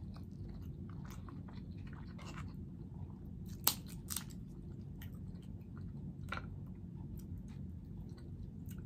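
Close-miked chewing and wet mouth sounds of someone eating, with small scattered clicks. Near the middle come two sharp snaps as a snow crab leg shell is broken to pull out the meat.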